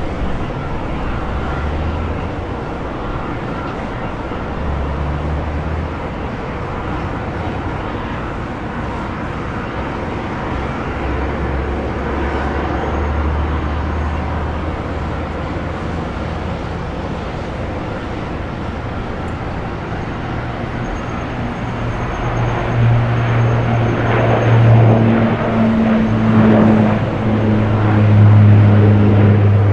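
Bombardier Dash 8 Q400 turboprop taking off, a steady propeller drone over general airport noise. About 22 seconds in the drone grows much louder, with a strong low steady tone, as the aircraft comes to full takeoff power and climbs away.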